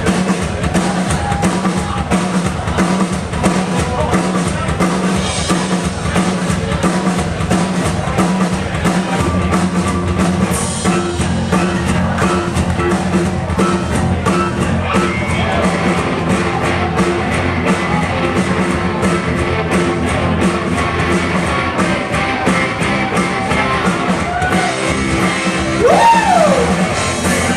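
Live rock band playing: a drum kit keeps a driving beat under electric guitars and bass, with some singing.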